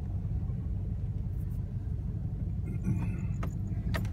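Toyota Tundra pickup driving at low speed: a steady low engine and road rumble, with a couple of sharp clicks near the end.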